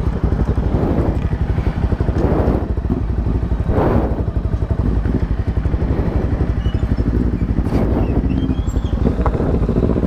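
Honda CBR300R's single-cylinder engine running steadily, with a rapid, even pulse and a few brief louder rushes of noise about two and four seconds in.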